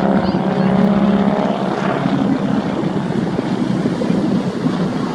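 Propeller aircraft flying past with a steady engine drone, its even tone giving way after about two seconds to a rougher rumble as it moves away.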